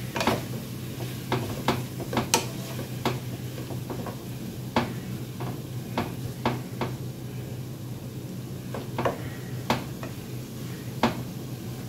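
Wooden spatula stirring corn, onion and bell pepper in a hot oiled skillet, the vegetables sizzling softly, with irregular clicks and scrapes as the spatula knocks against the pan.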